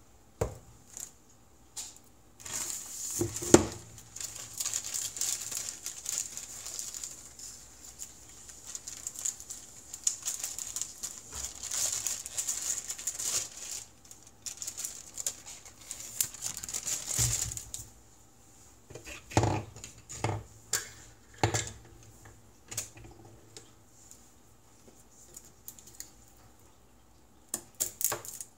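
Rustling, crinkling noise that goes on for about fifteen seconds, then stops, followed by a few short knocks of kitchen items.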